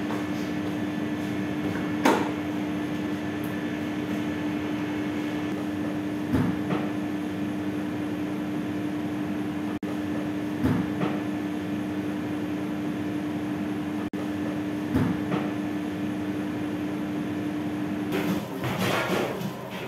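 A steady machine hum with a short knock about every four seconds. The hum cuts off near the end, followed by a brief burst of rustling and handling noise.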